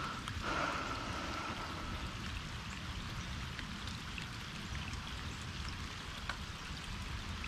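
Steady rain falling on the open water of a bayou, a continuous hiss with scattered drops ticking.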